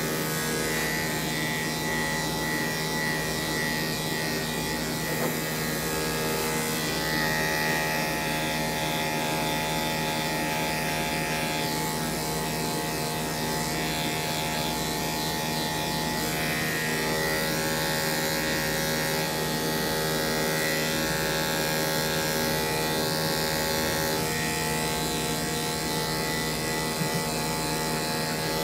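Corded electric dog-grooming clippers running steadily, their blade shaving close through a dog's coat with a constant motor hum.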